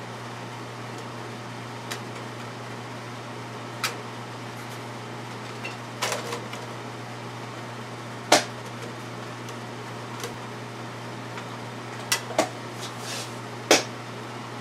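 Scattered sharp clicks and taps of small screws, a screwdriver and a metal light bracket being handled and fitted, about eight in all, the loudest about halfway through. Under them runs a steady low hum.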